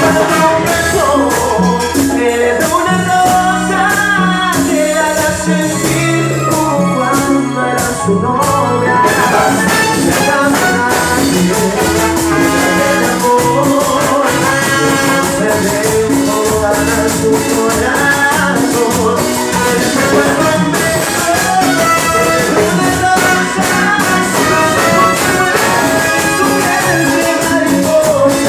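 Cumbia band playing live, with electric guitars, timbales, trumpet and trombone, and a lead singer.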